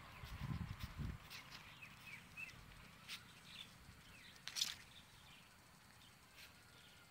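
Quiet garden ambience with faint short bird chirps and scattered clicks. A few low thuds come in the first second, and a sharp click about four and a half seconds in is the loudest sound.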